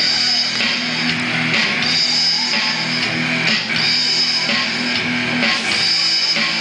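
Amateur rock band playing live: an electric guitar through an amplifier strumming held chords over an electronic drum kit, with cymbal crashes roughly every two seconds.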